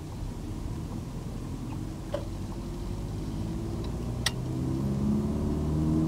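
A car's engine and road rumble while driving, with the engine note rising and growing louder over the second half as the car accelerates. A couple of sharp clicks, the louder one a little past the middle.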